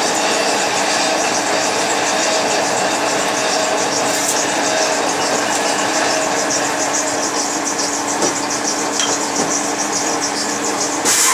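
Motor-driven metal-spinning machine running steadily as a sheet-metal heater collar is pressed onto a turning former, a continuous rushing, hissing machine noise with a faint hum. A brief louder hiss comes near the end.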